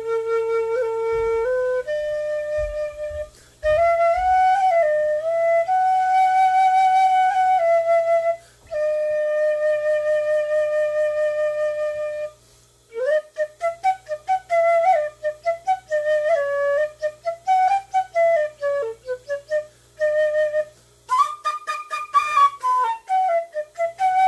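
Newly drilled PVC B-flat fife being test-played. It holds long, steady notes for about the first twelve seconds, then plays a quick run of short notes, climbing to higher notes near the end.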